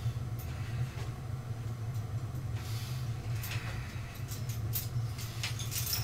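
Steady low hum, with light metallic clicks and rattles growing toward the end as a loaded barbell is raised.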